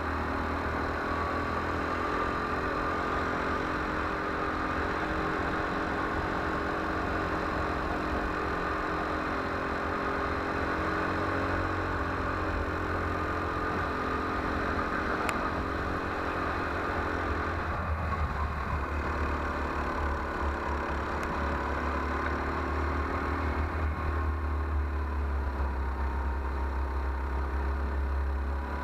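Go-kart engine running steadily at speed, heard from a camera mounted on the kart, with a strong low rumble under it. About two-thirds of the way through the engine note dips briefly and then picks up again.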